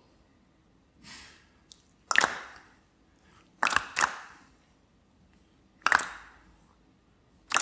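A group of performers making loud smacking sounds: about five sharp smacks at uneven gaps, with a softer one first, each dying away over about half a second.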